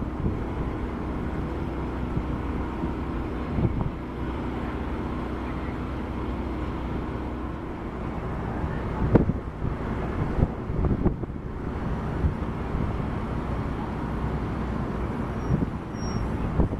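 Boat engine running with a steady low hum as the vessel manoeuvres off the quay, with gusts of wind buffeting the microphone now and then, the strongest about nine seconds in.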